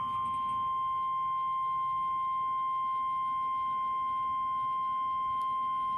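Emergency alert attention tone: a single steady tone near 1 kHz, the 1050 Hz NOAA Weather Radio warning alarm that comes before a National Weather Service warning message.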